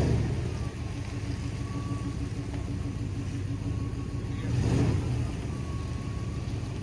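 Pickup truck engine running low and steady, swelling briefly a little over four and a half seconds in.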